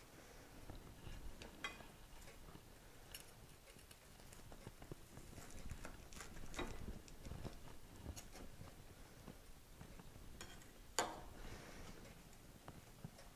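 Knife cutting through toasted, griddle-pressed grilled cheese sandwiches on a board, heard as faint scattered crunches and clicks, with one sharper click near the end.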